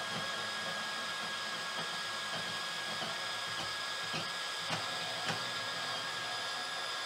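Milwaukee M18 Fuel Deepcut cordless bandsaw running at its top speed setting of 5, its 8/10-tooth thick-metal blade cutting through 2-inch 6061 aluminum: a steady motor and blade whine, with a few sharp ticks a little past halfway. The blade speed is slower than ideal for aluminum, but the saw cuts it without trouble.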